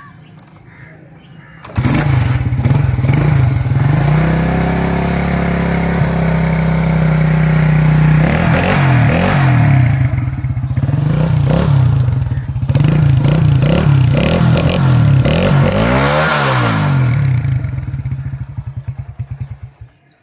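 Modified 97cc single-cylinder four-stroke motorcycle engine, its carburettor opened up, starting suddenly about two seconds in and idling steadily. It is then revved repeatedly with throttle blips, and near the end it sputters, fades and stalls.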